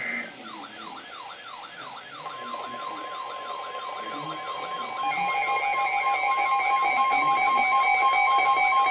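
Emergency Alert System attention signal: electronic alert tones. A falling, siren-like sweep repeats about three times a second. A steady tone joins about two seconds in, and a second steady tone about five seconds in, when the sound gets louder.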